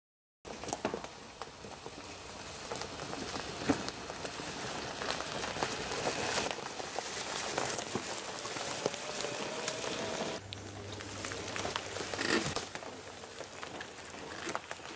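Pattering and crackling on dry forest leaf litter: seed thrown from a chest-mounted broadcast spreader and a golf cart's tyres rolling over the leaves, with many small clicks. A low steady hum joins about ten seconds in.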